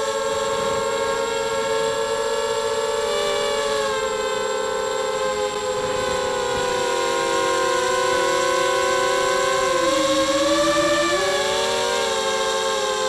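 Quad250 mini quadcopter's brushless motors and propellers whining in flight, several close pitches sounding together. The pitches sag and rise again about ten seconds in as the throttle changes.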